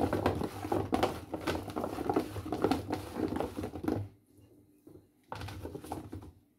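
Gloved hand rummaging through marinated carrot pieces in a plastic tub: a dense patter of small clicks, taps and scrapes for about four seconds, then a shorter burst near the end.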